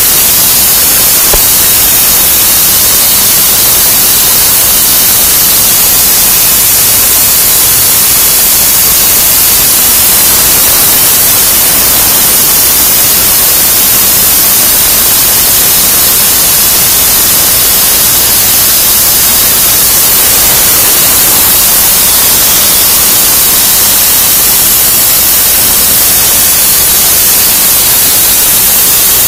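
PlasmaCam CNC plasma torch cutting metal plate: a loud, steady hiss of the arc and air jet with no breaks.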